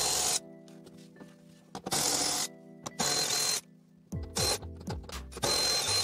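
About five short bursts, each around half a second, of a cordless power driver spinning out the bolts of a car's inner fender liner, over background music with falling bass notes.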